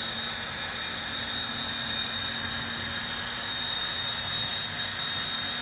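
Model diesel train running on the layout: a steady engine drone with a thin, steady high whine and a crackly rail hiss over it.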